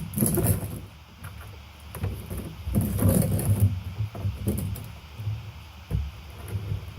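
Handling noise of batteries and wires being connected to a fire alarm horn strobe: irregular rustling and light knocks with a few sharp clicks.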